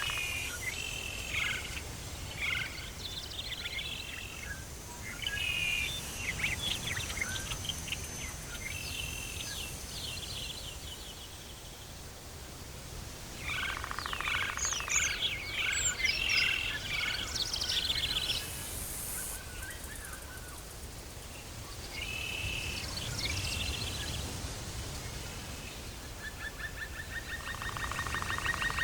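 Tropical forest ambience: several birds chirping and calling in bursts over a steady low background hiss, with a fast rattling trill starting near the end.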